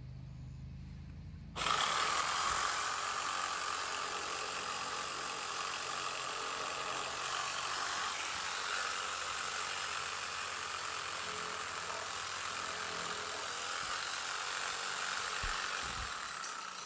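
Handheld power saw cutting, switching on about a second and a half in and running steadily until just before the end.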